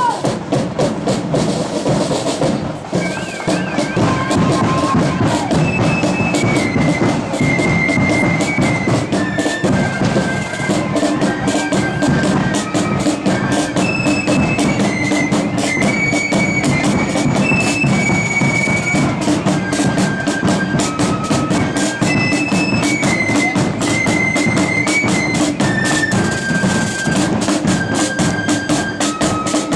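Marching melody flute band playing: side drums and bass drum keep a steady march beat, and the flutes take up the tune about three seconds in.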